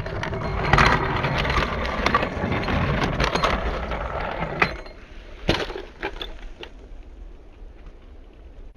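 Brio wooden toy train rolling along a wooden track, a dense rattling clatter of wood on wood for about four and a half seconds, then a few separate sharp knocks and lighter taps.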